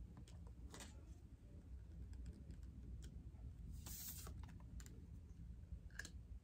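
Faint scattered clicks and a short rustle about four seconds in, from tarot cards being handled and laid on a table.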